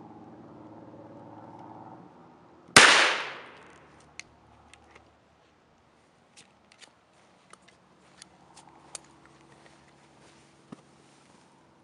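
A single 12-gauge shotgun blast a little under three seconds in, a sharp crack whose echo dies away over about a second, followed by scattered light ticks and taps.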